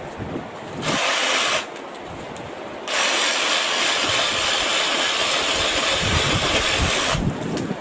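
BLACK+DECKER 18V cordless saw cutting tree branches, run in two trigger bursts: a short one about a second in, then a longer one of about four seconds that stops abruptly.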